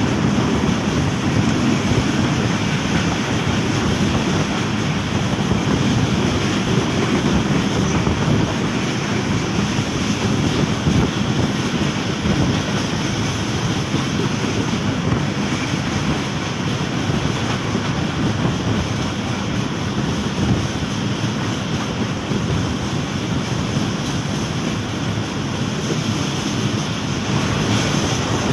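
Commuter train running, a steady rumble mixed with wind buffeting the microphone.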